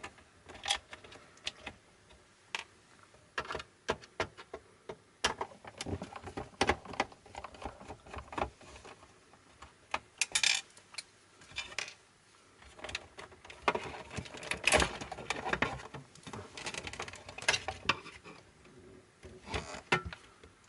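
Irregular clicks, taps and short rattles of a screwdriver and loose metal and plastic parts being handled while a cassette deck is taken apart, busiest about halfway through and again in the last third.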